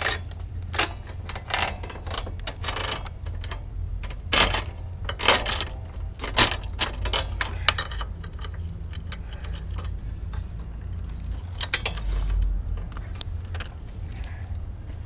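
Metal clinks and rattles of a motorcycle chain and tools being handled during chain fitting: a string of sharp clicks, thickest in the first half, then sparser. A steady low hum runs underneath.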